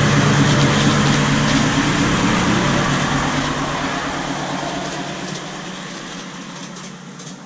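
A ride-on miniature railway locomotive hauling a riding car passes close by and runs off along the track: a steady low hum with running noise that fades away steadily as it goes.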